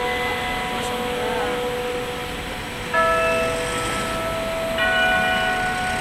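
The clock tower bells of the Wako building in Ginza chiming the hour signal. Separate bell notes of different pitch sound about every two seconds, two new strikes about three and five seconds in, each ringing on long over a steady hum of city traffic.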